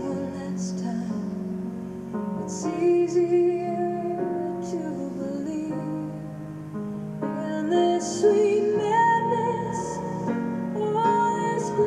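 A song: a woman's voice singing held, wavering notes over an instrumental accompaniment.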